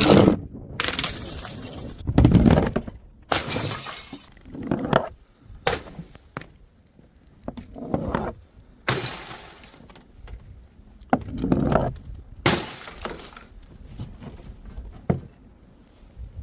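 Glass bottles smashing one after another, about a dozen sudden crashes, some with a short ring of scattering shards after them.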